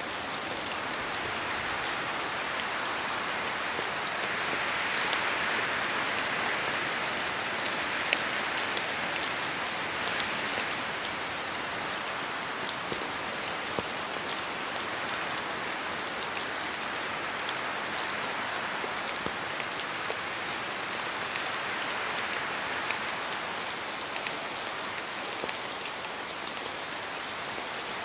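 Steady rain falling, a continuous hiss dotted with the sharp ticks of individual drops striking close by; the hiss swells slightly about five seconds in.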